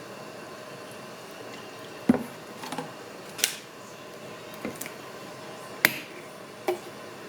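A handful of sharp clicks and knocks of kitchen utensils against dishes, about seven in all, over a steady background hum.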